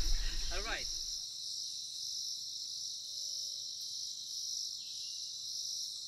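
Steady, high-pitched chorus of night insects in the rainforest, with a few voices trailing off in the first second.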